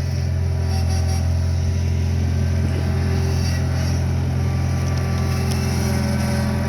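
Skid steer loader's engine running steadily, a constant low drone with no change in speed.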